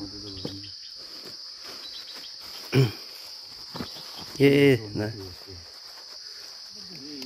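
Steady high-pitched insect chorus, with a couple of short voice calls around the middle.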